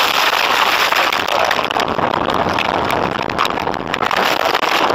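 Loud rushing noise that starts suddenly, with many small clicks and knocks through it: snow and slush thrown over a car's windshield and body.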